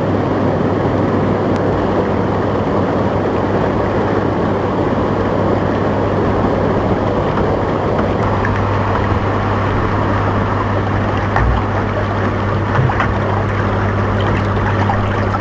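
Hot tub jets running, churning and bubbling the water, over the steady low hum of the spa's pump.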